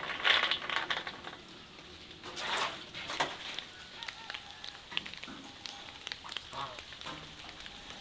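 Domestic turkey giving a few short calls among crackly, rustling noises, with the loudest noise in the first second and again about two and a half seconds in.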